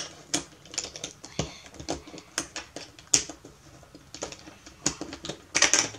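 Plastic speed-cube pieces clicking and clacking as they are handled and fitted into place, in irregular light clicks.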